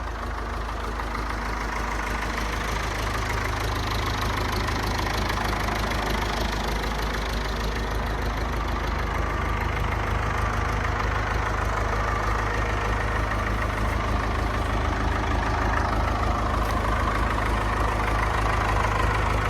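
Farm tractor engine idling steadily, slowly growing louder.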